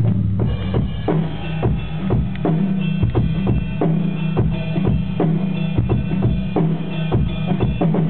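Drum kit played in a steady groove, with kick, snare and cymbal hits several times a second, along with a held bass line and other pitched instruments.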